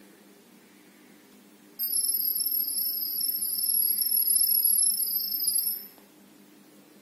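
Smartphone speaker playing the camera app's sonic-wave pairing signal: a high-pitched, slightly warbling tone with a second, higher tone above it. It starts about two seconds in and lasts about four seconds. The sound carries the Wi-Fi network details to the camera's microphone during setup.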